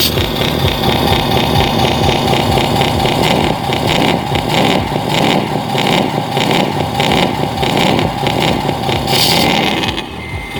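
Radio-controlled model trucks running, a steady engine-like drone with a rapid low pulse that dips slightly near the end.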